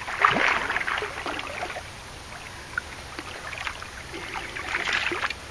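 Water splashing and sloshing at the bank's edge as a large hooked carp thrashes while being landed, in two spells: through the first second and again about five seconds in.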